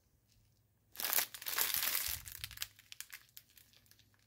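Strip of sealed plastic diamond-painting drill packets crinkling as it is handled. A loud spell of crinkling starts about a second in and lasts about a second and a half, followed by a few light crackles.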